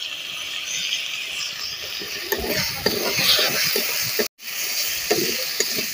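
Spice paste with chopped tomato frying in oil in a metal kadai, a steady sizzle, with a steel spatula stirring and scraping against the pan from about two seconds in.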